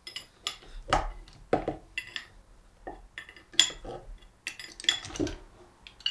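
A 24mm open-ended steel spanner clinking and knocking against the brass valve fitting of a Kranzle M2000 trigger gun as the tight fitting is worked loose. The clinks come irregularly, roughly ten of them, some ringing briefly.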